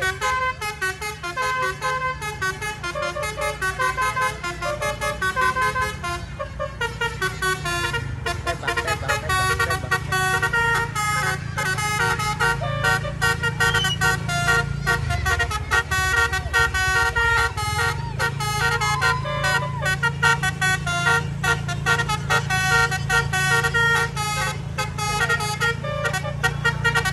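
The bus's multi-tone basuri 'telolet' horn plays quick melodic runs of notes without pause, over a steady low engine drone.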